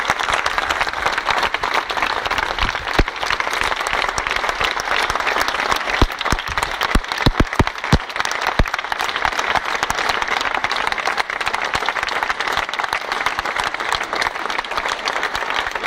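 Crowd applauding steadily, with a few sharper, louder claps close by about six to eight seconds in.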